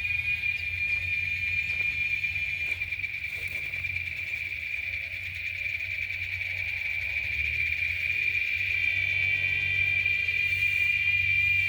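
Steady, unbroken insect chorus, a continuous high buzz or trill, over a low rumble.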